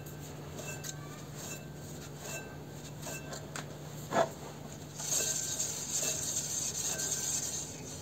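Clutch pulley and disc on the mini-tractor's gearbox input shaft turned by hand with the release fork held pressed, giving faint metallic clicks, one sharper knock about four seconds in and a light rubbing hiss in the second half. The oil is frozen, so it turns stiffly.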